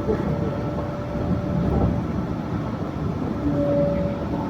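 Yurikamome Line rubber-tyred automated guideway train running, a steady low rumble. A faint steady whine stops about two seconds in, and a brief higher tone sounds near the end.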